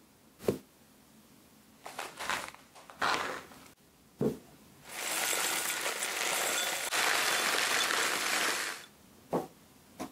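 Loose-leaf tea poured from a foil bag into an IKEA SAXBORGA glass jar, a steady dry pour lasting about four seconds in the middle. Before it, a glass jar knocks down once on the tray and the foil bag crinkles; near the end comes another short knock.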